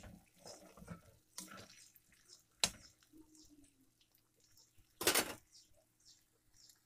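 Cornflour-coated sweet corn kernels frying in hot oil in an iron kadai: a faint crackle with a few sharp pops, the loudest about five seconds in.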